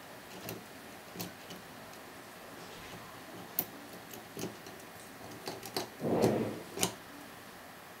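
Small sharp metallic clicks, irregular and spaced out, from a pick turning the discs of a cheap disc-detainer padlock, with a longer, louder burst of handling noise about six seconds in.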